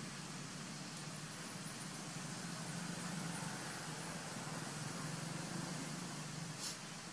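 Steady outdoor background noise with a low hum that grows a little louder midway, and one faint click near the end.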